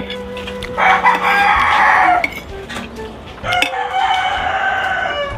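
A rooster crowing twice, each crow about a second and a half long, with a few faint clinks of cutlery on a plate near the start.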